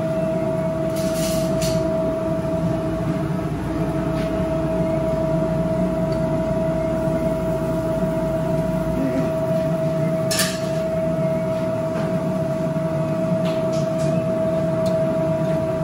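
Steady hum of running commercial kitchen equipment, with a high steady tone over a lower drone. A few sharp clicks, light knocks of utensils, come about a second in and again about ten seconds in.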